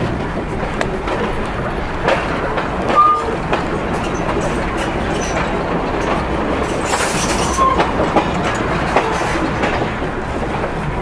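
Open wagon rolling along the track behind a small steam locomotive: a steady rumble of wheels on rail with scattered clicks, and two short wheel squeals, one about three seconds in and one near eight seconds.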